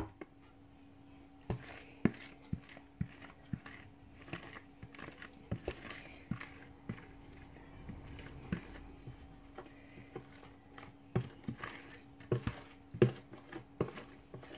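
Wooden spoon scraping and tapping against a plastic mixing bowl as thick cake batter is scraped out into a tin: a run of irregular soft taps and scrapes, with a cluster of louder knocks near the end. A faint steady hum runs underneath.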